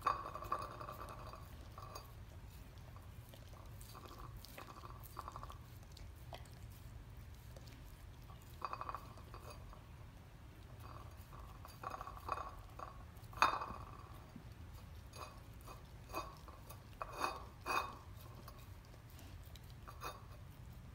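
German Shepherd licking and gnawing at a partially frozen raw steak on a ceramic plate: scattered wet mouth sounds and light clinks against the plate, with the loudest clink about two-thirds of the way through.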